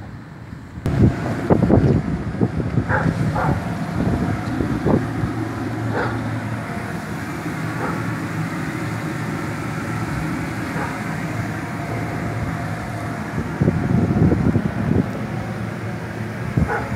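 Electric inflation blower running with a steady hum to keep a vinyl bounce house inflated, louder from about a second in, with scattered thumps and rustles of the vinyl.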